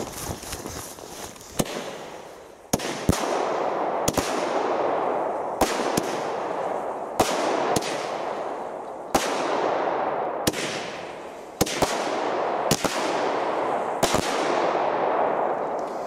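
Small consumer firework battery (Leslie 'Gold' cake, 50 g net explosive mass) firing its shots. There are about a dozen sharp bangs, roughly one a second at uneven spacing, and each is followed by a drawn-out noisy tail from the gold burst before the next shot.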